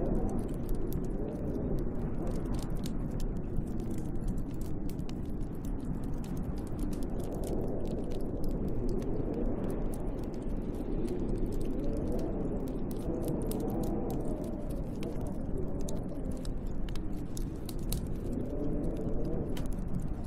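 Snowstorm wind rushing and howling, its pitch slowly rising and falling, over a wood fire crackling with many small, sharp pops.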